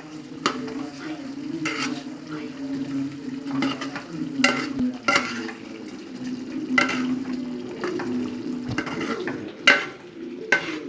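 A spoon stirring chicken curry in a pot, with irregular scrapes and knocks against the pot, over a steady low hum.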